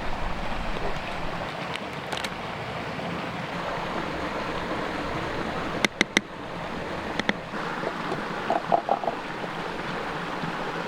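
Creek water running steadily, with a few sharp clicks about six and seven seconds in.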